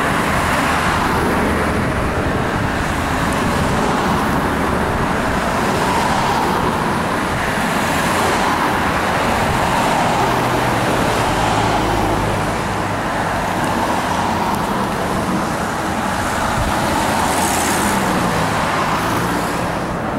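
Jet engine roar of two military fighter jets flying over in formation: a steady rumble that swells and eases only slightly.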